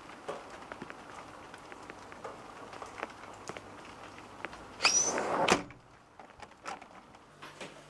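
Fridge door being shut, about five seconds in: a short squeak rising in pitch, then a thud as it closes. Small clicks and handling sounds come before it.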